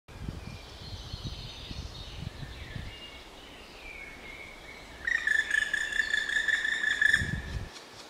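Black woodpecker giving a loud, steady, rapidly pulsed call for about two and a half seconds, starting about five seconds in. Faint songbirds sing behind it earlier, and a short low thud comes just before the call stops.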